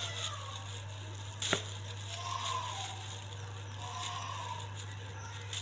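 Plastic bag crinkling as fingers work at a tight knot that won't come undone, with one sharp click about a second and a half in. A steady low hum runs underneath.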